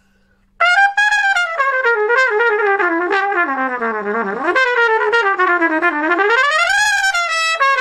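A Van Laar Oiram Gen III trumpet playing a phrase that starts about half a second in. It runs down step by step to a low note, climbs back up to a high note, and ends on a few shorter notes.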